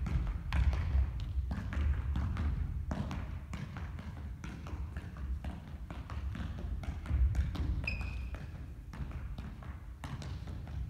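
A soccer ball thumping and bouncing, and footsteps and shoe taps on a wooden gym floor: a stream of short knocks, with one brief high squeak about eight seconds in.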